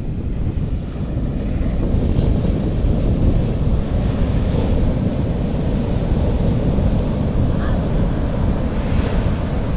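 Sea waves washing onto a beach, with wind buffeting the microphone as a steady low rumble.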